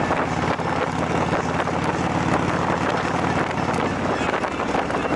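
Motorcycle engine running at a steady cruise of about 64 km/h, its note holding level, under heavy wind rush on the microphone.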